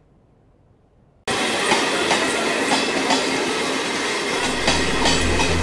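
Passenger train running past on the tracks: a steady rush of wheel and rail noise that starts abruptly about a second in. A low hum joins it near the end.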